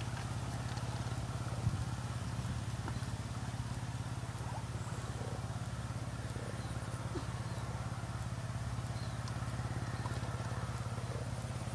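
Steady low mechanical drone, like a small engine running, with a few faint clicks.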